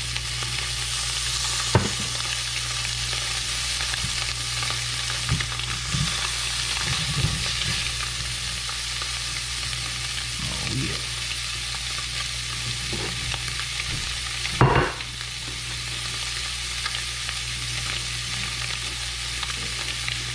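Seasoned fish fillets searing in hot oil in a cast iron skillet, a steady sizzle with a low hum underneath. A sharp knock comes near the start and a louder one about two-thirds of the way in.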